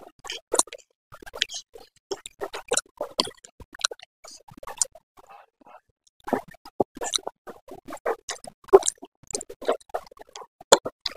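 A person eating Korean noodles close to the microphone: irregular wet chewing and slurping clicks and smacks.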